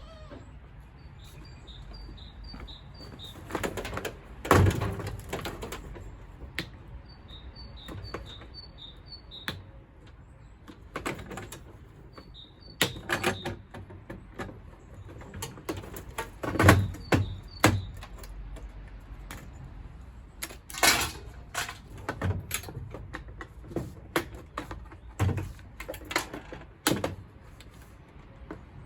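Irregular knocks and clatter of metal parts being handled and pulled apart while a gas combi boiler is dismantled for scrap. Runs of short, high, evenly spaced chirps come in a few times, about four a second.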